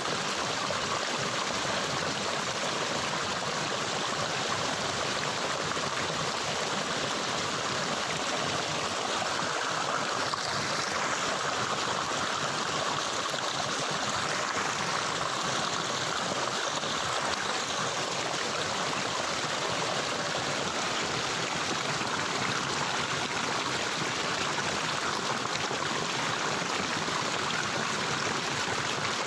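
Water of a stream flowing steadily, an even, unbroken rush of running water.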